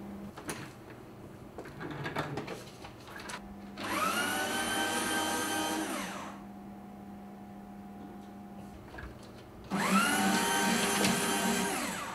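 Electric paper shredder running twice, each time for about two seconds: the motor spins up, runs, and winds down. Light clicks and paper rustling come before the first run.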